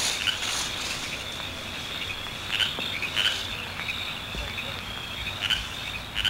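Crickets chirring steadily, an outdoor night-time ambience, with a few short faint sounds over it.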